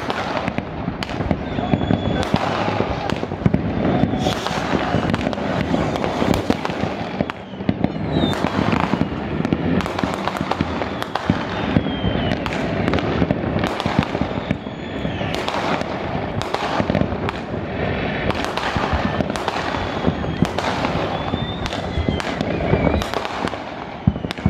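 Many fireworks going off at once: a continuous barrage of bangs and crackling from rockets and cakes, with a few high whistles from rising rockets.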